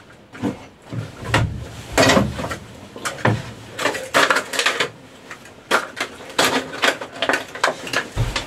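Hand tools and plumbing fittings being picked up and set down on a wooden deck, with plastic packaging rustling: irregular clinks, knocks and rustles.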